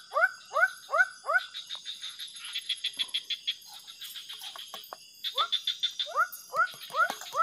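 An animal calling in a fast series of short rising calls, about three a second. The calls stop after about a second and a half and start again past the middle. A steady high insect trill runs underneath.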